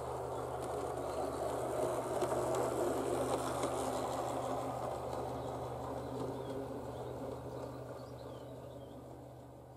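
Bachmann G scale Peter Witt streetcar model running past: the whir of its electric motor and its wheels rolling on the rails. It is loudest a few seconds in, then fades away as the car moves off.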